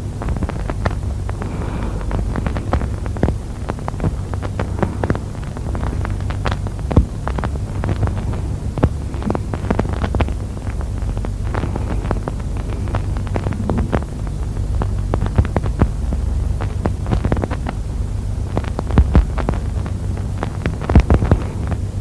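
Auscultation recording of Cheyne-Stokes breathing, the pathological breathing pattern of waxing and waning breaths separated by pauses, heard through a stethoscope. It plays as a steady low hum scattered with many short clicks.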